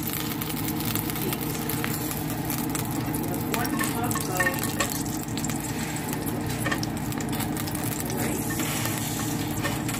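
Ghee melting and sizzling softly in a stainless steel pot, with small scattered crackles over a steady low hum.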